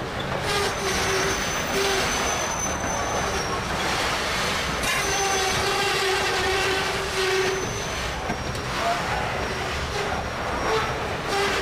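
Loaded freight train of covered hopper cars rolling past: a steady rumble and clatter of steel wheels on rail, with squealing tones from the wheels that come and go.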